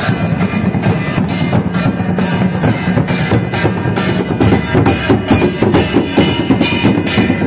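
Large barrel drums beaten with sticks in a steady, fast procession rhythm, several strikes a second.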